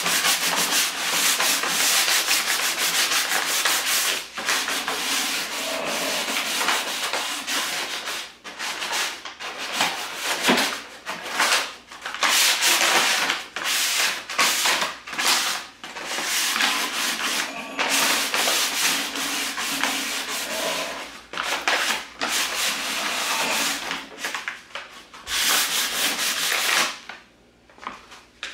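Hand sanding the wooden bed of a wagon with sandpaper: rasping back-and-forth strokes in runs with short pauses, stopping near the end. The wood is being scuffed back because polish left on it kept it from taking the grey stain.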